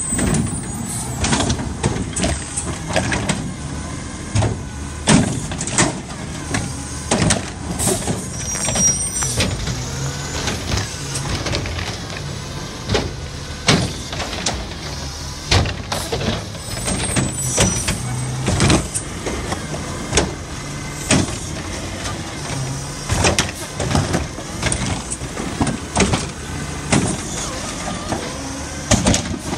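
Mack front-loader garbage truck's diesel engine running as it creeps along, with frequent metallic clanks and bangs from the Curotto Can and loading forks. A few brief high squeals, typical of air brakes, come in about a third of the way in and again past halfway.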